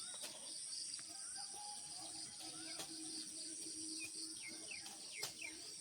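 Insects droning steadily at a high pitch, with birds giving repeated short falling chirps and a sharp click about five seconds in.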